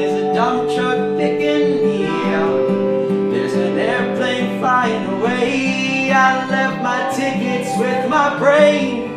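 Acoustic folk band in an instrumental break: acoustic guitar strumming and mandolin picking over the ringing tones of wine glasses rubbed at the rim as a glass harmonica. One long held glass note steps down to a lower one about two seconds in.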